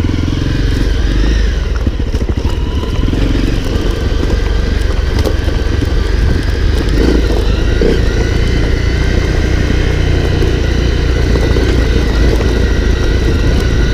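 Honda CRF250L's single-cylinder four-stroke engine running steadily.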